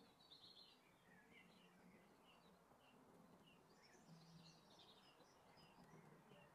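Near silence, with faint bird chirps repeating about twice a second.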